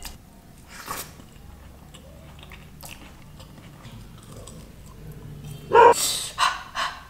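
Close-up eating sounds: soft chewing and mouth clicks of someone eating Indian food by hand. About six seconds in, a sudden loud gasp comes, followed by quick sharp breaths, a reaction to a very bitter mouthful.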